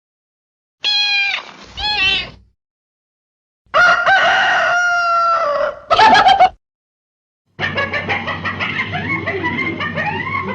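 Three separate stock sound-effect clips of chickens, a rooster crowing and clucking. Each clip starts and stops abruptly, with dead silence between them.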